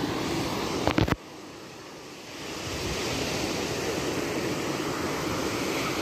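Small waves breaking and washing up on a sandy beach, a steady rush of surf. A couple of brief knocks come about a second in, after which the sound drops suddenly and swells back over the next couple of seconds.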